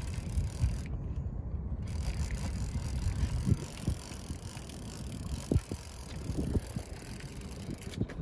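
Wind buffeting the microphone: a steady low rumble with scattered short knocks.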